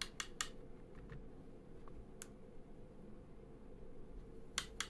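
Light clicks and taps of a small paintbrush against a plastic watercolour palette while paint is mixed in it: a few at the start, one on its own midway, and a quick cluster near the end, over a faint steady room hum.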